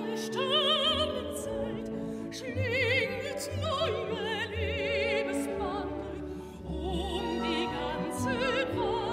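Mezzo-soprano singing operatically, her held notes carrying a wide vibrato, over a symphony orchestra with flute.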